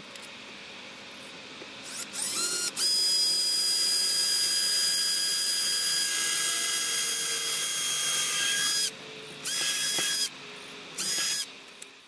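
Cordless drill boring a hole in wood: two short trigger pulls with the motor's whine rising, then a steady run of about six seconds, then two more short bursts near the end.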